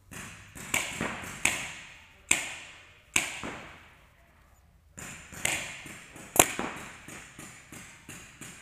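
Paintball markers firing during play, a string of sharp pops each trailed by echo from the big indoor hall: a first flurry, a pause of about a second and a half, then a second, quicker flurry.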